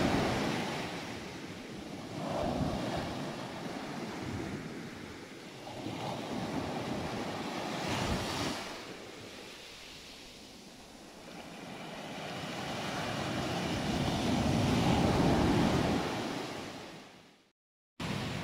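Ocean surf washing up the sand at the water's edge: waves breaking and foam running in and draining back, the wash swelling and fading several times. The last swell is the loudest and cuts off suddenly near the end.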